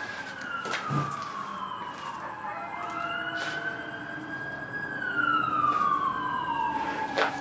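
Emergency-vehicle sirens wailing, at least two overlapping, each slowly rising and falling in pitch, with a few sharp clicks or knocks over them.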